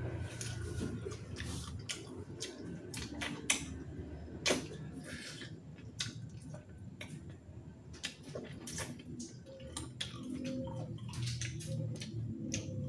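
Close-up mouth sounds of a man gnawing and chewing chicken feet, with irregular wet smacks and sharp clicks of lips and teeth.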